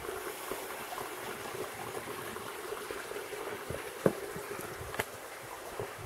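Shallow mountain stream trickling and gurgling over rocks, a steady watery rush, broken by two sharp clicks about four and five seconds in.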